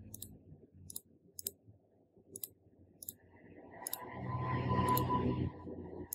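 Scattered sharp clicks, about eight over six seconds. A louder swell of rushing noise with a faint steady tone rises and fades between about four and five and a half seconds in.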